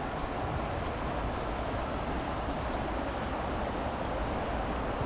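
Steady rushing of the River Ness flowing past, an even, unbroken water noise.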